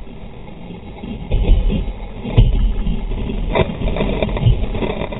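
Water rushing and splashing over a sea kayak's deck and hull as it surfs a wave, with paddle strokes throwing spray. Heard through a deck-mounted camera as a heavy low rumble with louder splashing surges about once a second.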